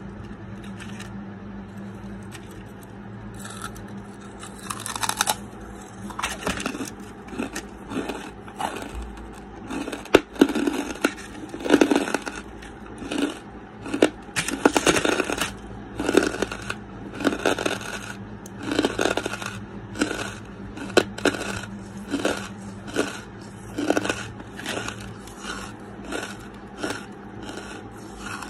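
Charcoal being bitten and chewed right at the microphone: dry crunches and gritty grinding about once a second, loudest around the middle. It starts with a few seconds of quieter scraping and handling of the charcoal pieces.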